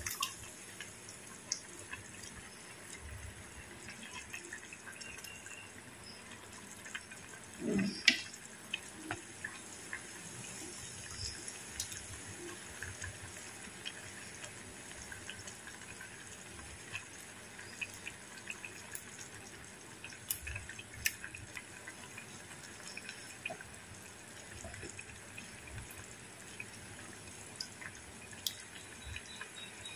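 Fish steaks being laid into simmering masala gravy in a clay pot: small wet splashes and plops over a steady bubbling, with one louder thump about eight seconds in.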